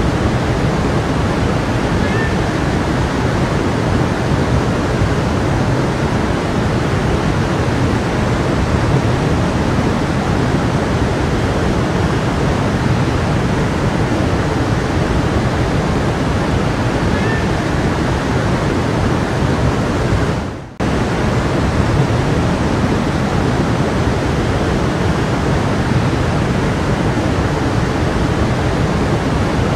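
A flowing stream, a steady dense rush of water that cuts out briefly about two-thirds of the way through.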